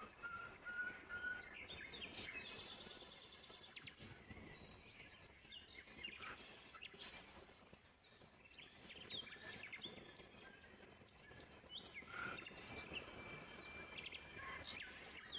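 Small birds chirping repeatedly in short notes and quick sweeps over faint background noise.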